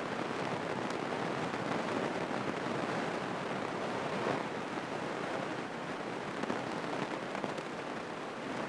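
Steady cabin noise of a single-engine light airplane rolling out on the runway after landing, engine and propeller at low power, an even rushing sound with no distinct tone.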